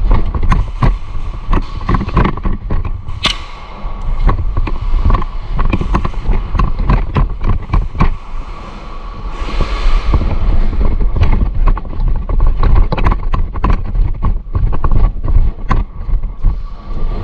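Airsoft gunfire: irregular sharp pops and clicks, some close and some farther off, over a steady low rumble of movement and handling noise, with a brief hissing rush about ten seconds in.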